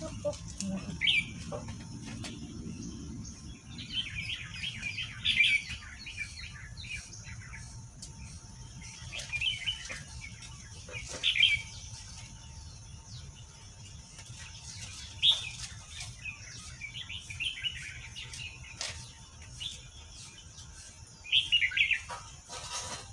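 Small birds chirping in short bursts of quick high notes, recurring every few seconds.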